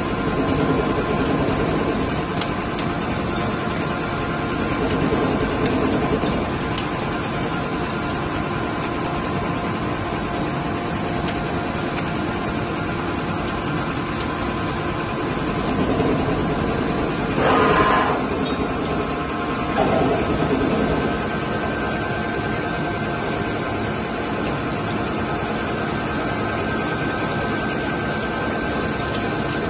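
CNC lathe running, turning a metal bar under coolant with a steady mechanical whir and spray hiss. About two-thirds of the way in a brief, louder, higher-pitched whine rises out of it for a second, with a smaller one soon after.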